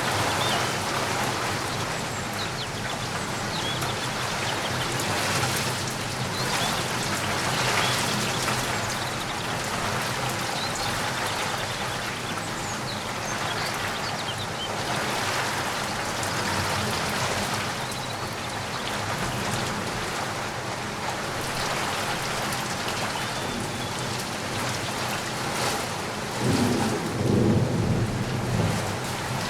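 Steady rain falling, a dense patter of raindrops. A brief low rumble swells up near the end.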